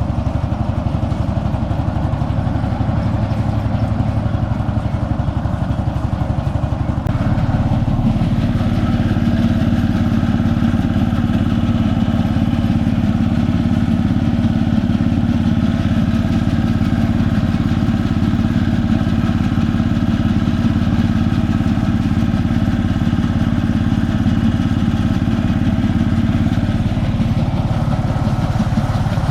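Konma MT-S411D harvester (stationary thresher) running empty with its engine and threshing mechanism turning, a steady mechanical drone that steps up in level about seven seconds in. It is being run to find an abnormal noise that appeared during threshing; the mechanic suspects a rattling "dadada" from play developing in the grain-and-straw sorting section.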